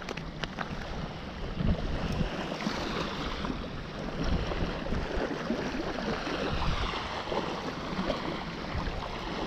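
Wind rumbling on the microphone over small waves washing onto a sandy beach: a steady rushing noise with uneven low gusts.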